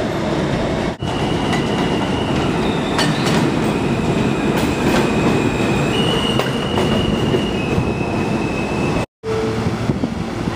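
R160 New York City subway train pulling into an elevated station: steady rumble of steel wheels on the elevated track with a high, steady squeal that steps up and down in pitch as it slows. Just after nine seconds the sound cuts out abruptly and comes back quieter, with the train standing at the platform.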